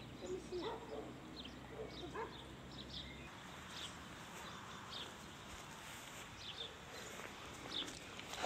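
Leonberger puppy whimpering softly a few times in the first couple of seconds, with small birds chirping throughout.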